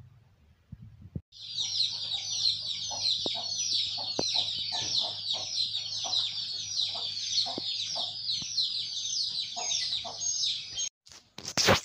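Dense, continuous chirping of many birds at once, rapid overlapping high notes that start abruptly about a second in and cut off abruptly near the end. A sharp knock follows just before the end.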